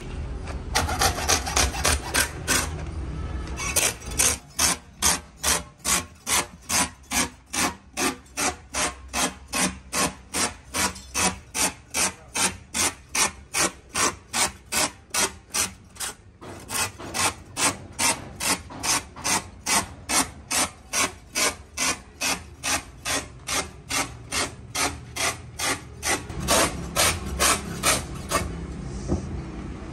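Quick, even rasping strokes, about two to three a second, as a hand rasp or file is worked back and forth over truck tyre rubber. There is a brief pause around the middle, and the strokes stop shortly before the end.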